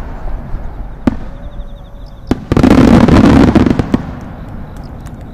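Yonshakudama giant aerial firework shell: the rumbling echo of its burst dies away, broken by two sharp cracks, then a second loud rolling boom swells from about two and a half seconds in and fades after four seconds into a low rumble.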